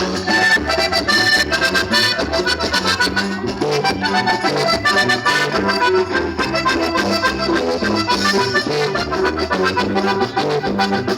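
Mexican accordion music: the accordion carries the instrumental break between sung verses of the song, over a walking bass line and a steady beat.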